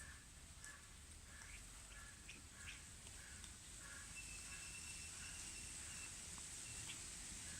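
Faint bird calls: short chirps repeated about twice a second, with a thin steady whistle held for about two seconds midway.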